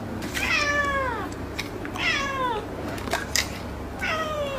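Domestic cat meowing three times, each meow falling in pitch. A couple of short clicks come between the meows.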